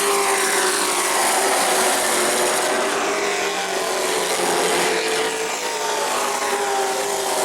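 Race truck engines running hard at speed, a loud, steady engine tone that rises and falls slightly.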